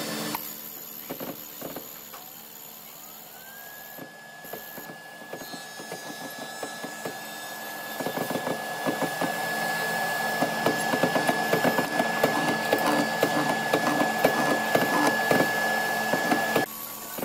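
Mortising machine spinning up with a rising whine, then holding a steady whine while its bit cuts a mortise into a hardwood board, with dense crackling of chips that gets louder about halfway through. The sound cuts off suddenly near the end.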